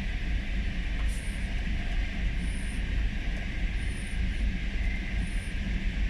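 Steady low rumble of a vehicle's engine and tyres on a rough dirt road, heard from inside the vehicle's cab. A short high chirp repeats about every second and a half above it.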